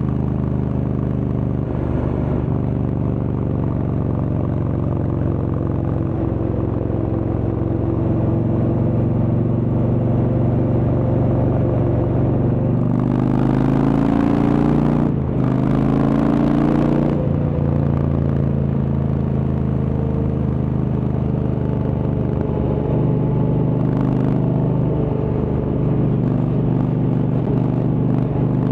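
Indian Chieftain's Thunder Stroke V-twin running through a Freedom Performance exhaust on the road. About thirteen seconds in the pitch rises under acceleration, breaks briefly for a gear change, then rises again before settling back to a steady cruise.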